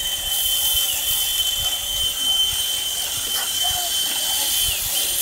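Cordless drill running steadily at high speed, its motor whining, spinning a drill bit wrapped in sandpaper to sand open a hole in a thick wooden cover board. The whine drops briefly in pitch about a second in and again near the end, as the bit loads up against the wood.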